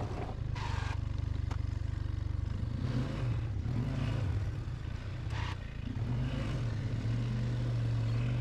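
Polaris Sportsman 500 ATV's single-cylinder four-stroke engine running steadily while plowing, with two brief scrapes about half a second and five seconds in.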